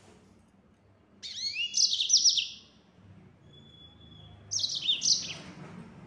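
Yellow-fronted canary (Mozambique finch) singing: a burst of rapid, high sweeping chirps about a second in and a shorter burst near five seconds, with a faint thin held note between them.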